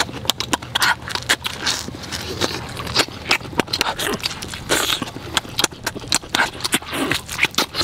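A person eating noisily close to the microphone: wet smacking, chewing and sucking at roasted turtle meat, heard as many quick, irregular clicks and short hisses.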